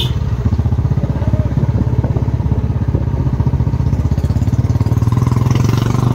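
Motorcycle engine running steadily, its rapid, even firing pulses heard close up.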